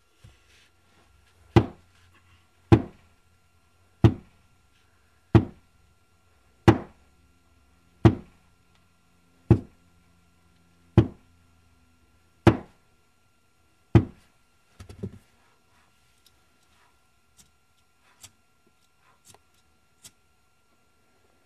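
A hatchet struck against a rock, over and over, to throw sparks for a fire: ten sharp, loud knocks about one every second and a half, then a few faint taps.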